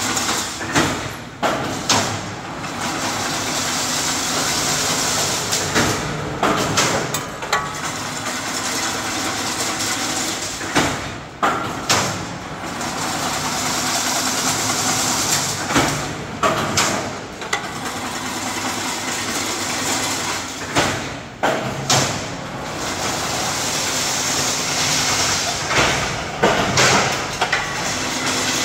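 Fully automatic servo-driven chain link fence-weaving machine running: a steady mechanical whir, with a cluster of clanks and knocks about every five seconds as each weaving cycle repeats.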